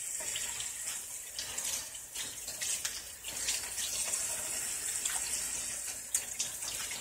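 Kitchen tap running onto raw chicken thighs in a plastic colander in a stainless steel sink, water splashing as hands rinse the pieces.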